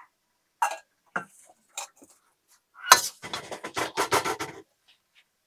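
Metal ladle clinking and scraping against a steel wok while stir-frying vegetables. A few separate clinks come first, then about three seconds in a quick run of scraping strokes that lasts a second and a half.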